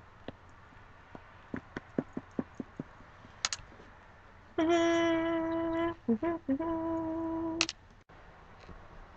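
A woman humming one steady note for about three seconds, with a few short wavering notes in the middle, her lips held in a suction lip-plumping cup. Before it comes a string of light clicks.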